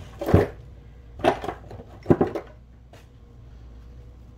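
Glass spice jars knocking and clinking as they are handled: three sharp knocks in the first two and a half seconds, the first the loudest, then quiet.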